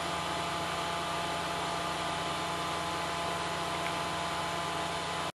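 Steady hum and hiss of room tone, with mains hum and a few faint steady tones and no distinct events; it cuts off abruptly at the very end.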